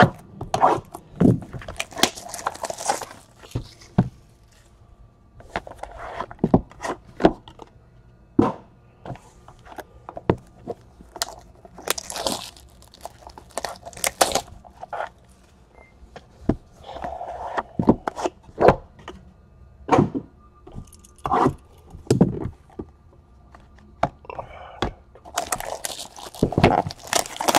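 Cardboard trading-card boxes being cut open and handled: scattered sharp clicks and knocks as boxes are set down and stacked on the table mat, with a few short scraping, tearing sounds from the cutter and packaging.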